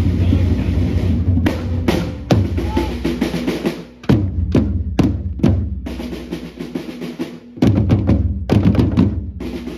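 Drums playing, with a run of sharp, loud hits over a dense low rumble.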